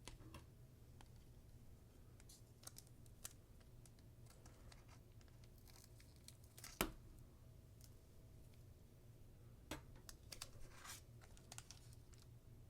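Faint tearing and crinkling of a Pokémon booster pack's foil wrapper as it is opened, with scattered soft rustles and clicks and one sharper snap about halfway through.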